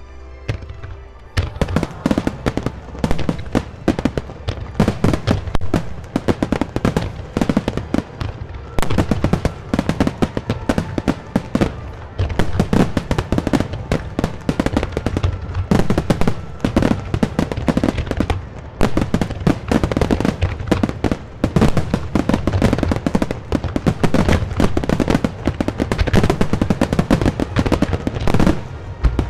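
A fireworks display in a dense barrage: rapid, overlapping crackling bangs over deep booms, starting about a second in and continuing without a break. Music plays underneath.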